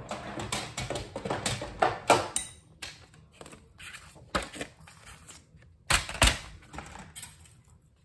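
Paper, cardstock and craft tools being handled and moved about on a craft mat: rustling with a string of irregular clicks and knocks, and louder thumps about two seconds in and again about six seconds in.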